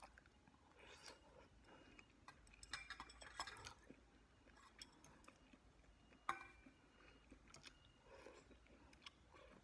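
Faint chewing of noodles, with light clicks of metal chopsticks against a stainless steel bowl and one sharper clink about six seconds in.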